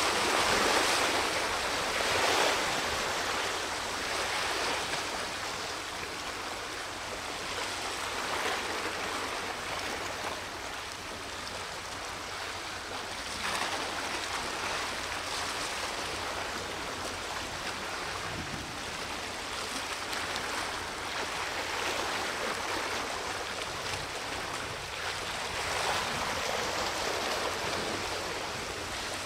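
Sea water washing and splashing in choppy, foaming surf, swelling louder every few seconds, loudest just at the start.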